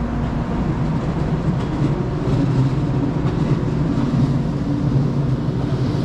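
Steady low hum from a Shinkansen train standing at the platform with its onboard equipment running, growing a little stronger after about two seconds.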